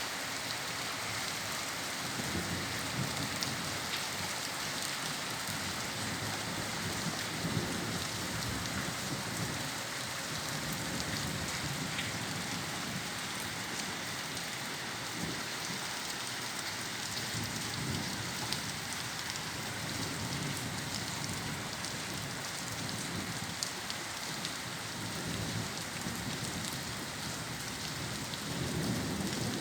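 Steady rain falling in a thunderstorm, with scattered drop ticks and low rumbles of distant thunder that swell and fade several times.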